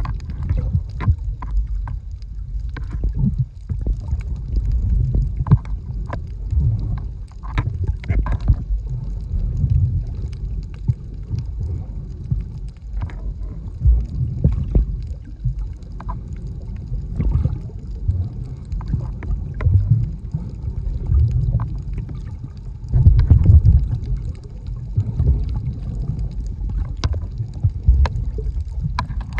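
Underwater water movement heard through a submerged camera: a muffled low rumble with scattered clicks and crackles, swelling louder about three quarters of the way through.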